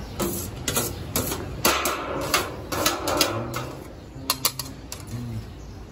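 Flat metal spatula and a large metal lid clinking and scraping against a big metal cooking pot as the cooked pulao rice is tossed and mixed: a quick, irregular run of sharp metallic clicks, thickest in the middle.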